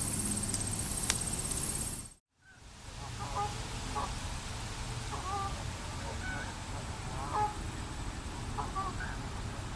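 A loud steady hiss with a few crackles that cuts off abruptly about two seconds in. After the cut, waterfowl call distantly in short, scattered honks over a low outdoor rumble.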